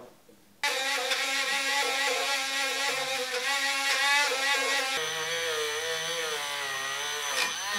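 Dremel rotary tool running at high speed, starting about half a second in, its pitch wavering as the bit works on a vacuum motor's commutator. The commutator is being cleaned to stop sparking at the brushes. The pitch dips sharply and picks up again near the end.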